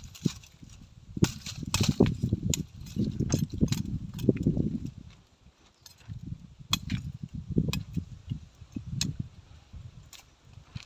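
Gusty wind buffeting the microphone in uneven rumbles, easing off for a moment near the middle, with scattered sharp clicks and knocks.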